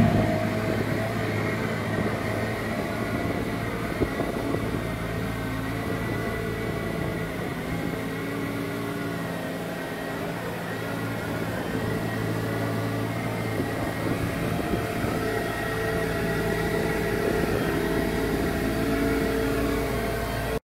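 The Kubota D722 three-cylinder diesel engine of a Kärcher KMR 1700 D ride-on sweeper running steadily as the machine drives about, fading somewhat in the middle and growing louder again towards the end as it comes back close.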